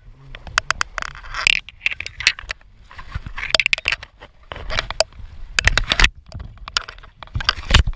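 Irregular scrapes and clicks of fly line being stripped in by hand while a hooked trout is played close in, with the trout splashing at the surface.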